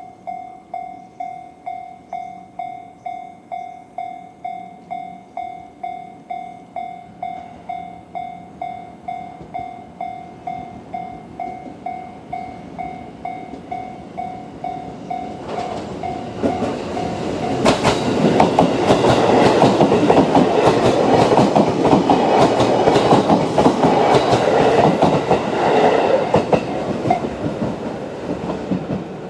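Japanese railway level-crossing alarm ringing its electronic bell tone about twice a second. From about halfway, a JR Ome Line E233-series electric train passes over the crossing, its wheels clattering over the rail joints, loud for several seconds and fading near the end.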